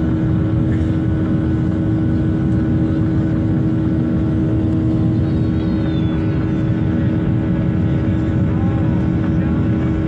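Jet airliner cabin noise during the climb: the engines and rushing air make a steady, loud drone with a constant hum running through it.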